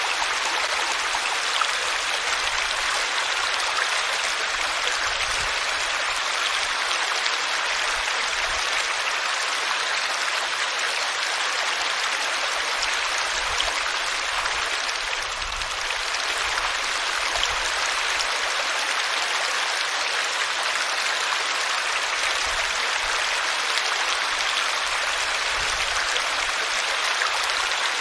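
Water flowing steadily in a small stream, a continuous even rushing and babbling.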